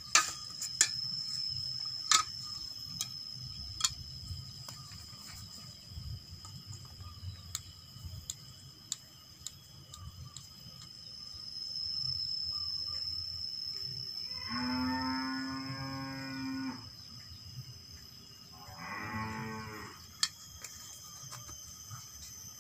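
Light clicks and taps of tools on the angle grinder as its rear bolts are undone in the first few seconds, then a cow mooing twice: a long call about two-thirds of the way in and a shorter one a few seconds later. A steady high insect trill runs underneath.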